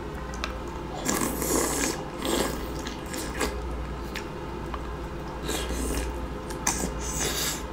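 Wet, sticky squelching and shell clicks from butter-sauce-drenched green-lip mussels being handled and eaten close to the microphone, in a series of short bursts.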